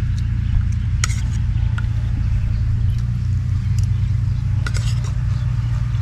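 A spoon clinking and scraping against a plate a few times as rice is eaten, over a steady low rumble.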